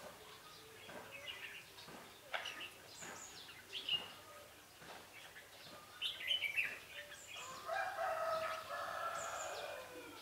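Red-whiskered bulbuls giving short, high chirping calls scattered throughout. From about seven and a half seconds in, a rooster crows in one long call of about two and a half seconds, the loudest sound.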